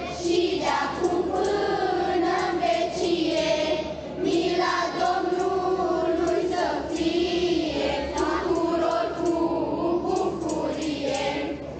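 Children's choir singing a Christmas carol (colindă).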